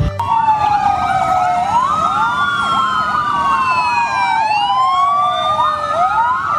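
Several fire engine sirens sounding at once: slow wails rising and falling in pitch, overlaid with a fast warbling yelp.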